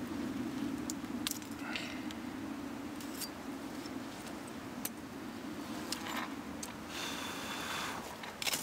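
Light metallic clinks and taps of a knife and eating utensils as cooked steak is moved onto a wooden board and cut, over a steady low hum.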